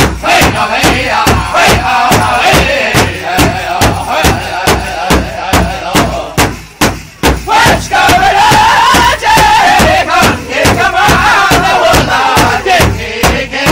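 Powwow drum group: a large drum struck in a steady beat, about three strokes a second, with several singers chanting high-pitched over it. The singing breaks off briefly about halfway through while the drum keeps going, then comes back strongly.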